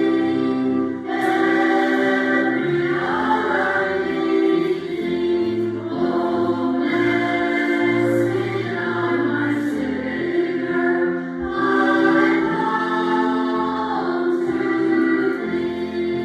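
Church choir singing a medley, with steady held notes underneath the voices.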